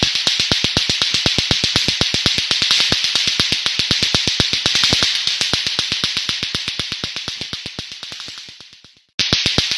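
Lato-lato clacker balls knocking together rapidly and evenly, about eight clacks a second, over a steady high hiss. The clacking fades, breaks off for a moment near the end, then starts again.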